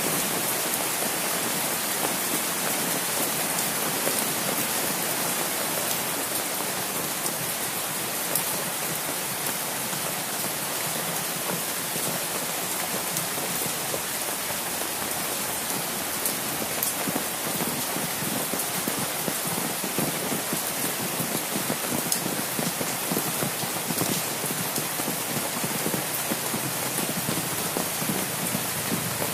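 Steady rain falling, with many small drop ticks striking an umbrella held overhead.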